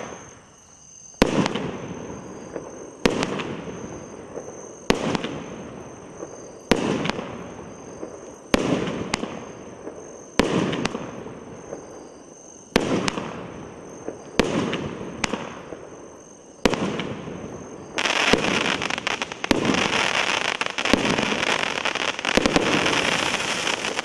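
A 200-gram multi-shot consumer firework cake firing one shot about every two seconds, each a sharp bang followed by a fading sizzle. For the last six seconds dense, continuous crackling from the crackle-effect shells overlaps the bangs.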